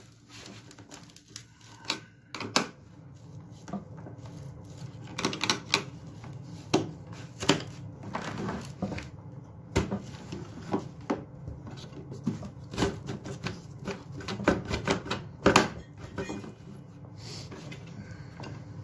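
Irregular metal clicks, taps and scrapes of a hand tool working at a stuck part inside the drive assembly of a motorized cooler scooter, with a louder knock about three-quarters of the way through.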